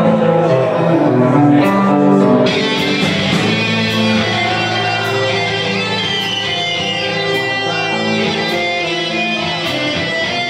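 Live rock band playing with electric guitars, bass and drums: held guitar chords over regular cymbal strokes, with a bending lead guitar line in the middle. The sound turns brighter and fuller about two and a half seconds in.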